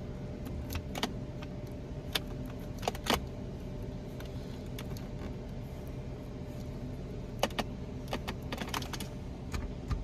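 Fingers picking and peeling black tape off a plastic gear shift knob, giving scattered small clicks and crackles over a steady low hum.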